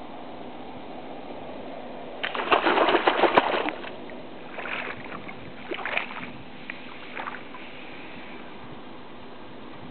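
Water splashing in a rapid flurry for about two seconds, then a few shorter splashes: a big flounder thrashing as it is stabbed with a gig. A faint steady hum runs underneath.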